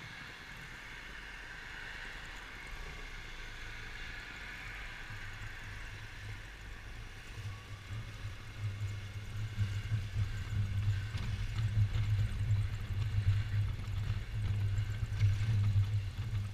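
Yamaha XMAX 250 scooter on the move, its single-cylinder engine running under wind noise on the microphone. A higher whine in the first few seconds slowly eases, and from about halfway a low rumble grows louder and choppier.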